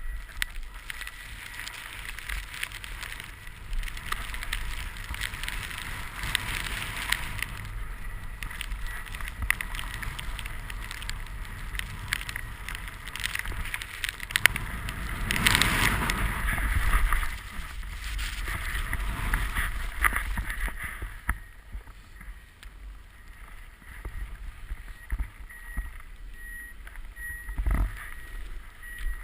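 Snowboard sliding and carving through fresh powder, a continuous hiss and scrape of snow with crackly edge noise. It swells to a louder rush about halfway through and is quieter in the last third.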